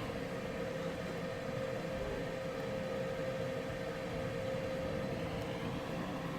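Fume-extraction fan running with a steady hum and a constant whine.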